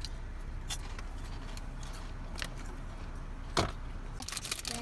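Plastic snack bag crinkling and chips crunching as a child eats: a few scattered crackles, a sharper crack about three and a half seconds in, then a quick flurry of crinkling near the end, over a steady low hum inside the car.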